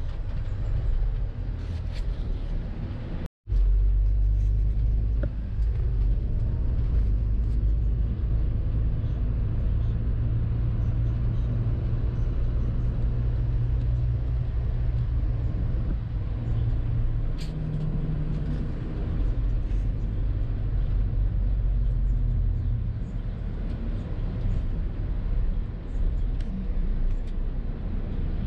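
Steady low rumble of a motor vehicle's engine running continuously, broken by a brief cut in the audio about three seconds in.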